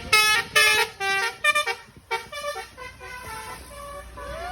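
Bus 'telolet' musical horn playing a quick run of short, stepped notes at changing pitches. It is loudest in the first two seconds, and fainter notes follow.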